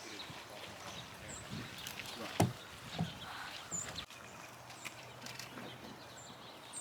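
Faint outdoor ambience with short, high bird chirps every second or two, and a few sharp knocks such as footsteps or handling, the loudest about two and a half seconds in.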